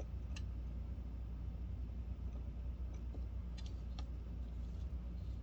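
Quiet workbench handling during soldering: a few faint light clicks and ticks over a steady low hum.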